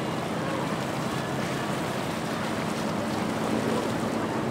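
Steady wind noise on the microphone over the wash of sea waves, with a low steady hum underneath.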